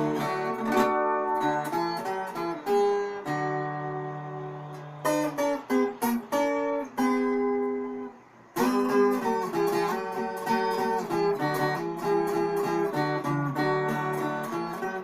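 Viola caipira, the Brazilian ten-string folk guitar, playing an instrumental interlude of plucked melody notes. The playing stops briefly about eight seconds in, then picks up again.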